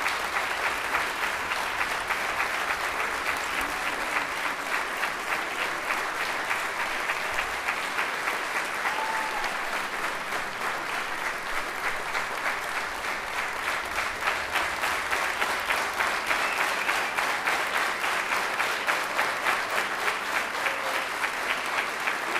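Theatre audience applauding, the many claps falling into a steady rhythm.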